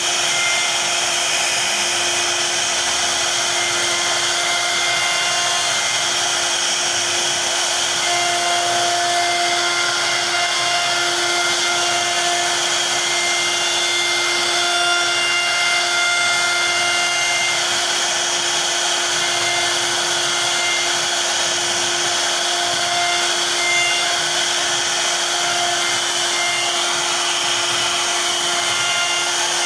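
CNC router spindle carving into a wooden panel: a steady high whine over a dense cutting hiss, with short higher tones coming and going as the bit moves through the wood.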